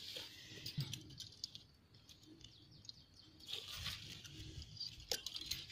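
Faint handling noise: light clicks and rustling of coiled wire spring traps and trapped rats being set down on dry sandy ground, with a few faint high chirps about midway.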